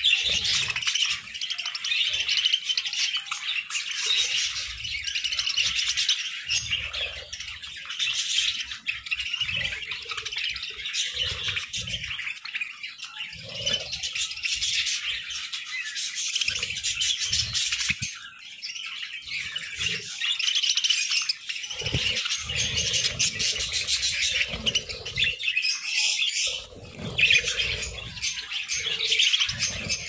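A flock of budgerigars chattering and chirping, many birds at once, without a break. Irregular low bumps are mixed in.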